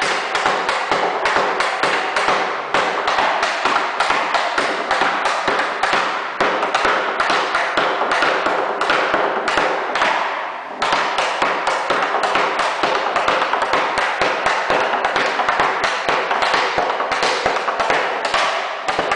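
Fast, rhythmic knocking on a wooden wine barrel, a cooper working it by hand, with a short break about ten seconds in.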